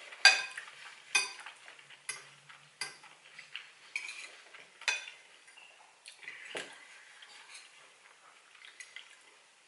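A metal fork clinking and scraping against a bowl-shaped plate while eating: a series of sharp, ringing clinks roughly a second apart, the first the loudest, with softer scrapes between them, thinning out near the end.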